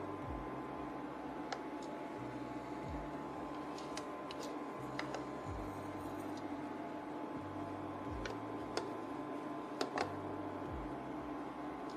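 Red silicone spatula scraping and tapping against a metal pot and steamer basket as sticky rice is stirred and scooped, giving scattered light clicks, the sharpest two near the end, over a steady low hum.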